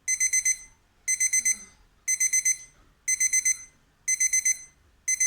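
Digital kitchen timer's alarm beeping as its countdown reaches zero: a high electronic beep in quick groups of four, repeating about once a second.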